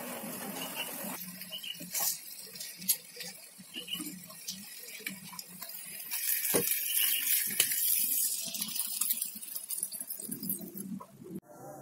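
A few light clinks against a frying pan, then water poured into the pan over chicken breasts from about six seconds in, a steady splashing hiss lasting a few seconds.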